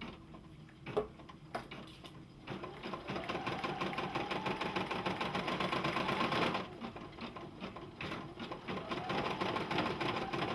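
Computerized embroidery machine stitching with black thread: a few separate clicks, then a rapid run of needle strokes over a rising motor whine that starts a couple of seconds in, eases briefly past the middle and picks up again near the end.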